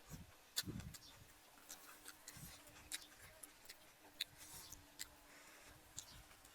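Faint, irregular sharp clicks and light taps, a few every second, with a couple of soft low thumps.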